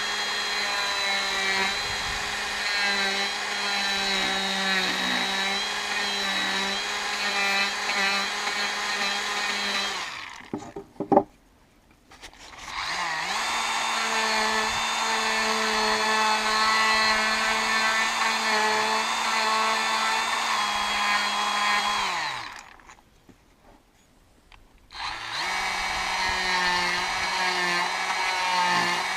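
DeWalt 18V cordless die grinder with a spherical bit running with a steady whine as it carves a paw print into a wood offcut. It stops about ten seconds in, followed by a sharp knock. It starts again, winds down with falling pitch after about twenty-two seconds, and restarts a few seconds later.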